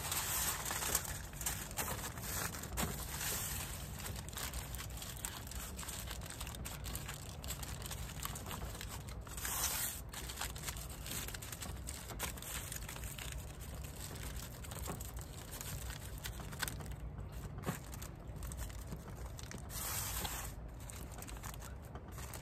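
Aluminium foil crinkling and rustling as a foil food packet is folded over and crimped shut by hand, with louder rustles now and then.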